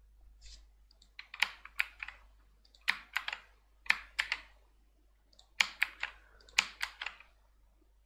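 Computer keyboard keys clicking in about five short bursts of quick keystrokes, with brief pauses between the bursts.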